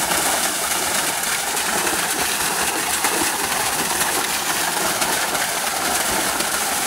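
Waterfall: the steady rushing noise of falling water.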